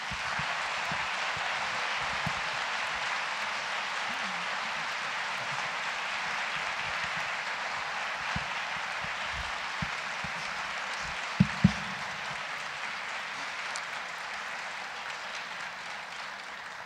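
Audience applauding steadily, easing off slightly near the end, with two brief knocks about eleven seconds in.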